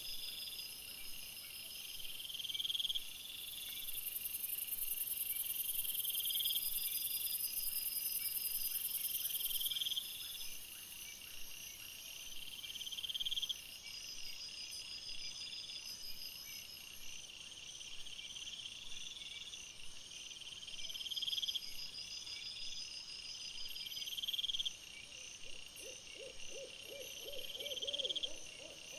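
Night woodland animal sounds, sped up fourfold: a short rising note repeats about every two and a half seconds over a steady high pulsing trill, with a faint rapid patter near the end.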